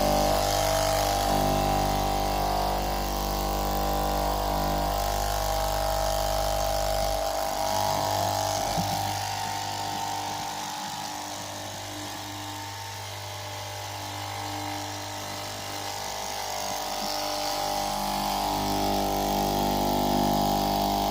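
Electric straight-knife cloth cutting machine with a 13-inch blade running as it cuts through a very thick stack of fabric: a steady motor hum, quieter for a few seconds in the middle and louder again near the end.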